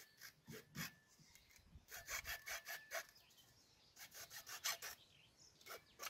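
Hacksaw sawing through HDPE plastic pipe: quick strokes in three or four short runs with brief pauses between.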